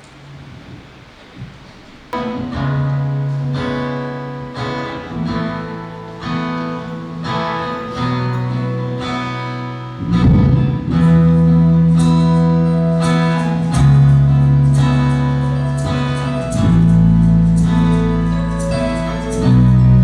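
Instrumental music starts about two seconds in, a song's introduction of plucked string notes; deep bass notes come in about halfway through.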